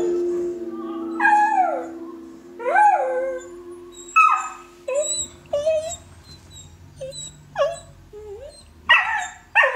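A dog howling at music from the TV: three long, falling howls in the first half, then shorter yips and whimpers about once a second. Sustained music notes sound under the first two or three seconds and then fade.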